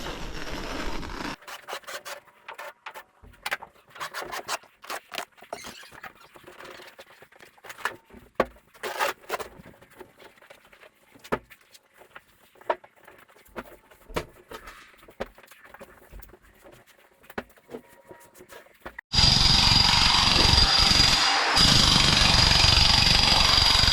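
Scattered sharp clicks and snaps, then, near the end, a power tool starts up abruptly and runs loud and steady with a high whine.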